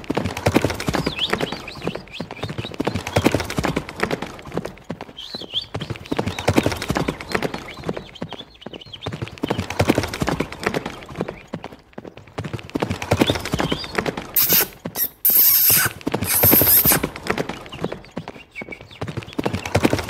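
Battery-powered walking toy horse running, giving a steady, rapid clip-clop of hoofbeats. A few louder bursts come about three-quarters of the way through.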